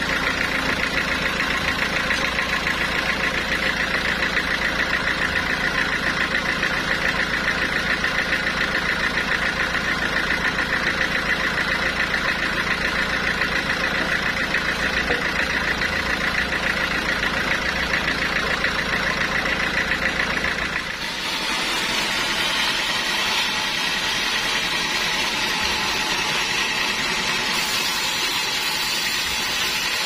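Band sawmill running steadily with an even mechanical drone. About two-thirds of the way in, the sound changes abruptly to the higher, noisier sound of the band saw blade cutting lengthwise through a teak log.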